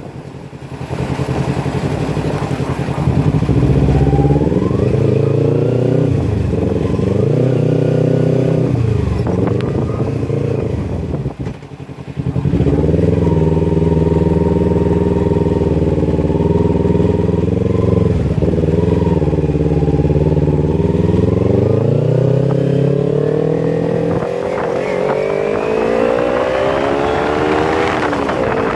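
Kawasaki Ninja 250 FI's parallel-twin engine through a Scorpion full-system exhaust with the dB killer removed, running under throttle. Its pitch climbs over the first few seconds, rises and falls several times, and cuts out briefly about eleven seconds in. It then runs steady and climbs again near the end.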